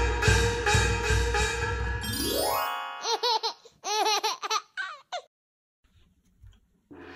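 Intro music sting with heavy drum hits, ending in a quick rising glide. Then comes a run of short, bouncy cartoon-like blips that wobble up and down in pitch. After a short gap, background music starts near the end.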